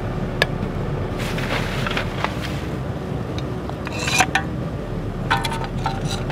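Aluminium cans clinking and scraping against a metal crucible as they are dropped in and pushed down with a steel rod, with a cluster of clatters about four seconds in. Under it, the steady low noise of the sawdust furnace's fire driven by two blower fans.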